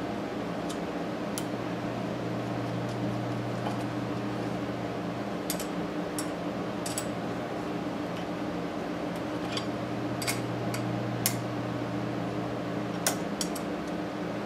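Small wrench and steel rod-cap bolts on a Maytag 92 engine's connecting rod clicking as the cap is tightened onto the crankshaft: about a dozen sharp, irregular metallic clicks, the loudest near the end. A steady low hum runs underneath.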